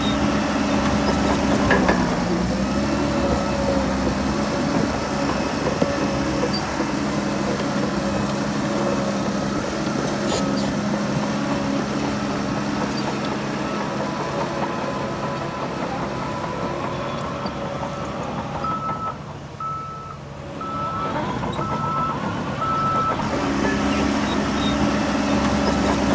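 Heavy diesel earthmoving machinery, bulldozer and dump trucks, running steadily under load. About two-thirds through, a reversing alarm sounds a short run of about six evenly spaced beeps.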